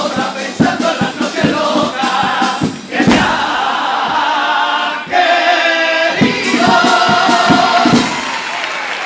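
Male comparsa choir singing the closing lines of a Cádiz carnival pasodoble in close harmony, over guitar strums and drum strokes. The voices hold a long final chord and stop about eight seconds in, and the crowd starts applauding.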